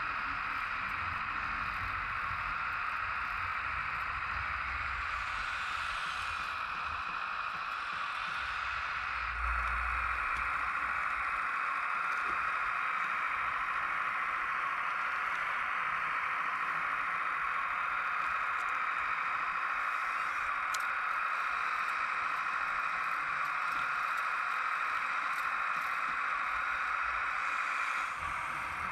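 RC Kubota mini excavator's electric hydraulic pump running steadily with a hissing whir while the model digs, with a low bump about a third of the way in.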